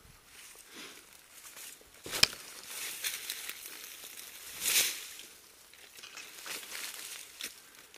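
Dry leaf litter, twigs and brush rustling and crunching under a hiker's steps and against the body while moving through forest undergrowth. A sharp crack a little over two seconds in is the loudest sound, with a second loud rustle near the middle.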